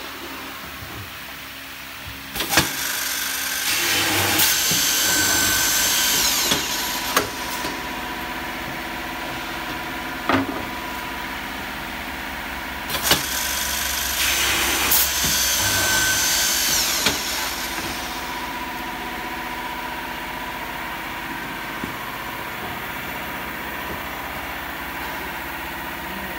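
Holztek Z42 two-row multiple boring machine drilling holes in a particleboard panel: its spindle motors hum steadily, and twice a sharp clack opens a few seconds of louder boring with a hiss as the drill heads go into the board.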